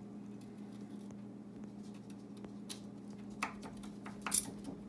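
A few light clinks and taps of a utensil against a baking pan as a cinnamon bun is worked loose, the loudest near the end, over a steady low hum.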